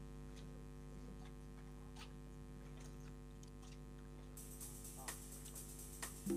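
A steady low hum with a few faint clicks scattered through it.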